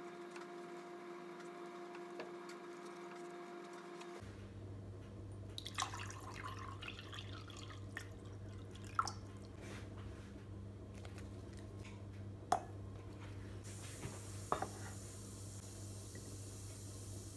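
Water poured from a glass pitcher into a drinking glass, a short trickling pour about six seconds in. It is followed by a few sharp clicks. A faint steady hum comes before the pour, and a faint hiss begins near the end.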